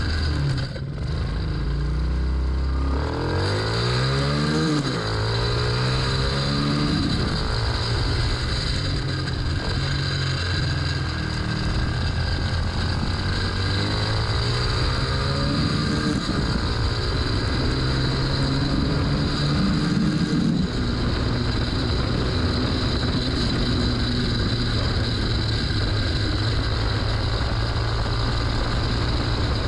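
Small motorcycle engine running under way through an exhaust packed with steel wool as a makeshift muffler. Its pitch rises and falls several times with the throttle, then holds steady for the last third.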